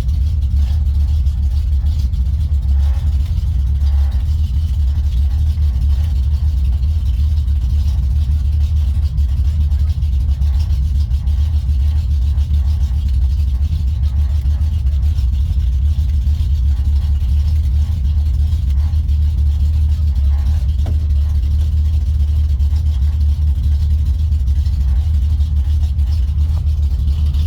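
1965 Ford F100 pickup's engine idling steadily with a deep, even low rumble.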